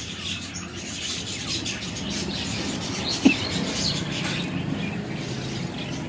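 Many caged birds chirping and calling together, with one short, louder call about three seconds in.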